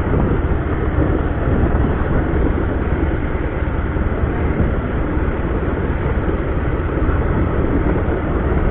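Motorcycle on the move: a steady rush of wind and road noise, with no clear engine note standing out.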